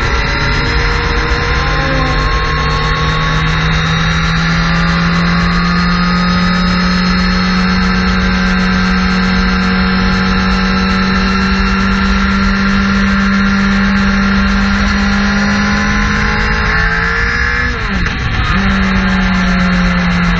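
Suzuki GSX-R sport bike's inline-four engine running at highway speed, heard from a camera mounted on its fairing. The engine note climbs slowly and steadily, then dips briefly near the end and comes back up.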